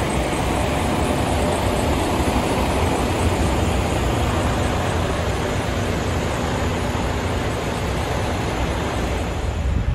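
Diesel engines of heavy dump trucks running, a steady low engine noise with no breaks.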